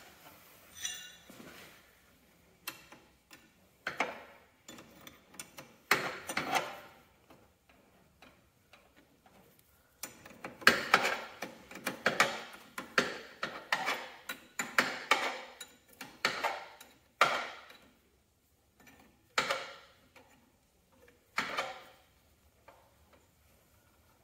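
Wrench working the hydraulic hose fittings on a garden tractor's remote valve: a series of sharp metal clicks and clinks, with a dense run of rapid ticking in the middle as a fitting is turned.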